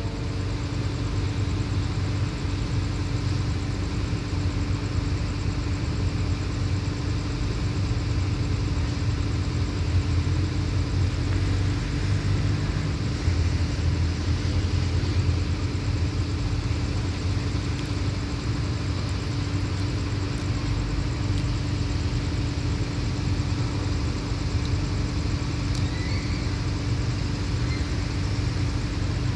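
Diesel locomotive idling steadily: a constant low rumble under an even hum.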